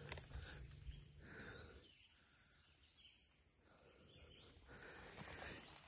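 Steady, high-pitched insect chorus, with a single sharp click just after the start.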